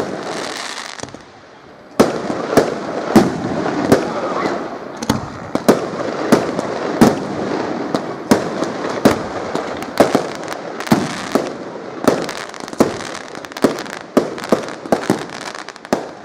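Aerial fireworks shells bursting in a rapid series of sharp bangs, about two a second, with crackling between them; a short lull about a second in, then the barrage picks up again.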